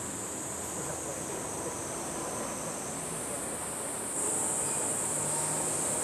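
Steady high-pitched drone of summer insects, which gets louder with a step about four seconds in, over a faint even outdoor background noise.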